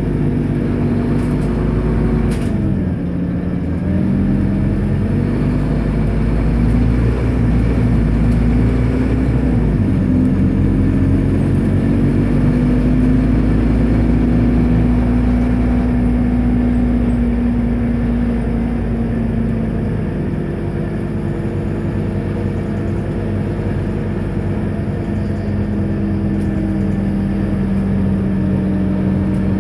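Scania Omnicity city bus heard from inside its cabin while driving: the engine's tone rises as it pulls, drops at each gear change, and holds steady between, over a constant low road rumble.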